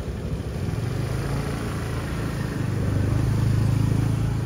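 Motorbike engine passing close by on the street, its hum growing louder to a peak about three to four seconds in and then falling away.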